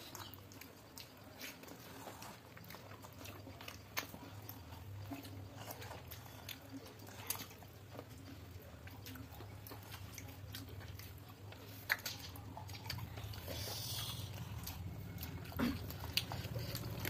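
Faint eating sounds of people eating rice and vegetables by hand from a steel plate: chewing with scattered small clicks, over a steady low hum.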